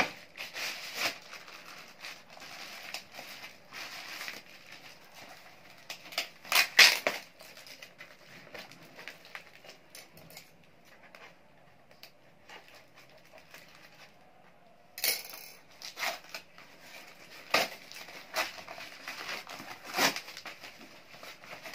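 Plastic courier packaging and taped paper wrapping being cut with scissors and torn and crinkled by hand, in irregular rustling bursts with a few louder tearing rips.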